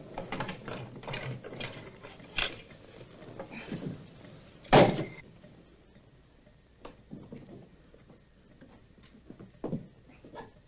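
A run of knocks and clatters, busier in the first few seconds, with one loud sharp bang about five seconds in and a few fainter clicks near the end.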